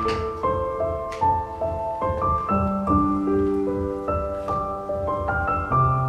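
Background piano music: a steady succession of held notes and chords.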